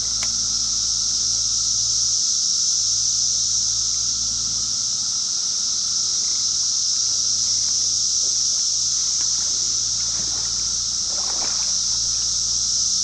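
Steady, high-pitched drone of summer insects over the running water of a shallow creek, with a few light splashes from wading.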